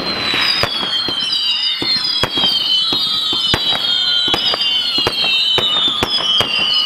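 Fireworks display: several whistling fireworks screaming at once, each whistle slowly falling in pitch, over a rapid run of bangs and crackles.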